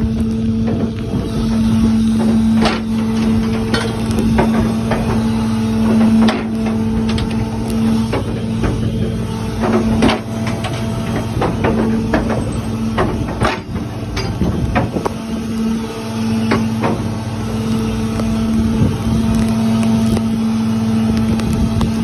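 Fishing boat's engine running with a steady hum, overlaid by frequent irregular knocks and clatter.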